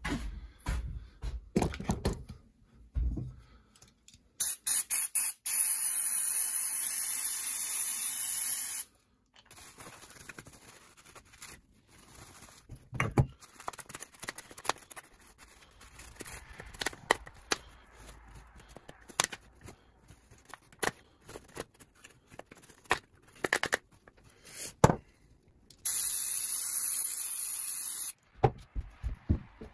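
Aerosol cleaner sprayed onto a plastic trimmer cover in two long steady hisses, the first about four seconds long and the second about two and a half seconds near the end. In between, paper-towel wiping and small handling rustles and clicks.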